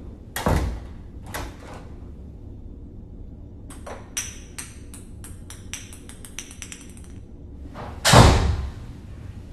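A door in the basement opening and closing on its own, unseen below the stairs: two knocks in the first two seconds, a fast run of rattling clicks from about four seconds in, then a loud bang about eight seconds in.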